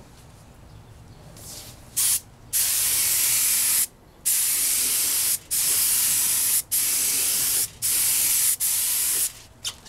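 Gravity-feed compressed-air spray gun hissing in a run of short passes, each about a second long with brief breaks, as clear coat is sprayed on. The hiss starts about two seconds in.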